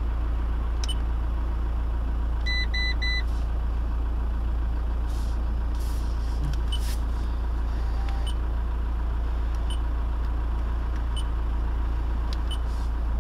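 Fiat Doblo's 1.9 JTD Multijet turbodiesel idling with a steady low hum, heard from inside the cabin. About two and a half seconds in come three quick high beeps, and faint clicks from the stereo's buttons being pressed are scattered through.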